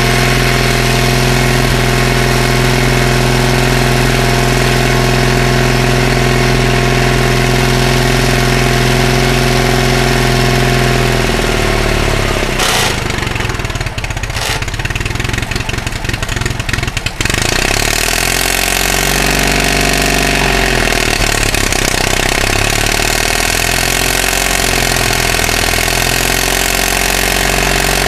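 Caterpillar D318 diesel engine of a Link-Belt Speeder LS-90 dragline running on a cold start. About eleven seconds in its pitch drops and the running turns uneven, with a couple of knocks, for several seconds. It then settles into steady running again with a slightly wavering pitch.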